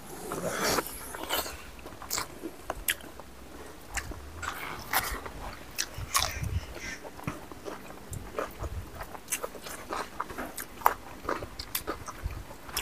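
Close-miked mouth sounds of two people eating pork and rice with their hands: chewing and biting, with a steady run of short, irregular clicks and smacks.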